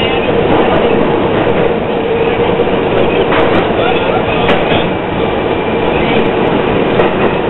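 R38 subway car running at speed through a tunnel: a loud, steady roar of wheels on rail with a constant whine underneath, and a few sharp clicks from the wheels.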